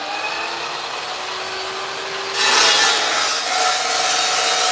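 Chop saw cutting through metal: a loud, steady grinding hiss with the saw's whine sliding slowly in pitch under load, growing louder about halfway through as the cut bites.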